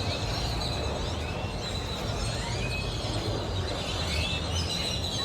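Birds chirping: scattered short, quick chirps over a steady low outdoor rumble.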